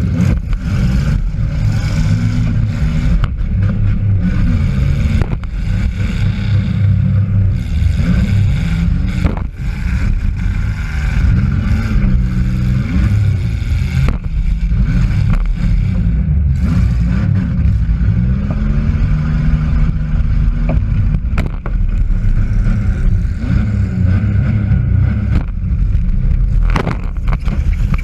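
Demolition derby car's engine revving up and down under hard use, heard from inside the cabin, with a few sudden bangs scattered through.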